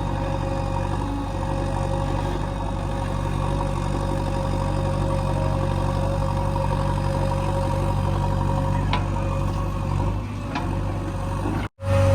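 JCB 3DX backhoe loader's diesel engine running steadily at constant speed, with two faint clicks near the end. The sound drops out for an instant just before the end.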